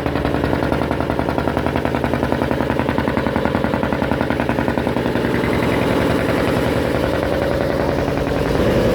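Fishing boat's inboard diesel engine running, a steady rapid thumping that the crew call 'dimal'.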